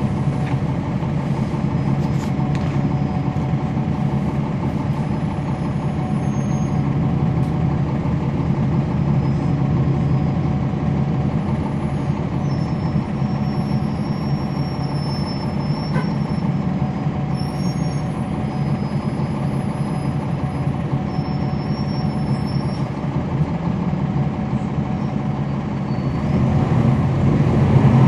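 Cummins ISL9 diesel engine of a 2011 NABI 40-SFW transit bus heard on board, running with a steady drone, then growing louder near the end.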